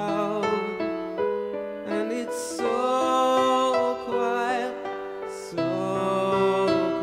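Background music led by piano, with long held notes, some of them wavering in pitch.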